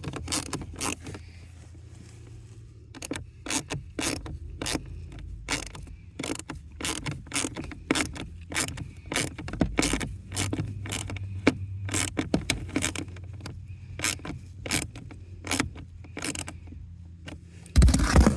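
Hand ratchet clicking in quick runs with short pauses as it tightens a replacement blower motor's mounting screws. There is a louder knock near the end.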